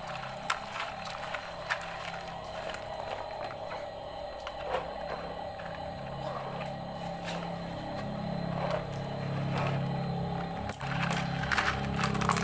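Small toy motor whirring steadily, with scattered sharp clicks and clatters, busiest near the end.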